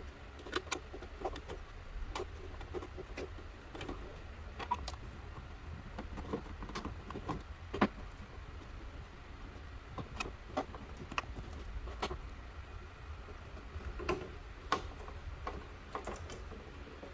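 Irregular light clicks and taps, roughly one or two a second, with one sharper click about eight seconds in, over a faint steady low hum.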